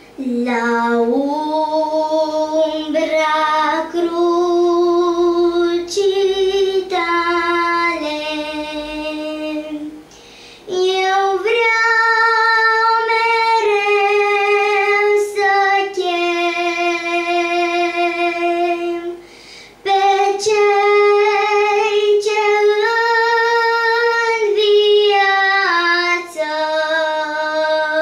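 A young girl singing a Romanian Christian hymn solo and unaccompanied, in long held notes, with brief pauses for breath about ten and twenty seconds in.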